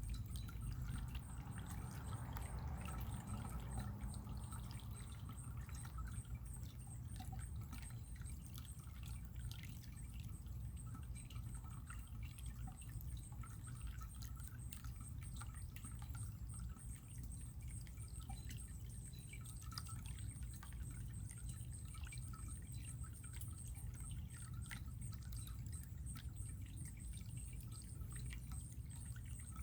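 Running water trickling and dripping steadily, with a low rumble underneath and many small scattered drip ticks.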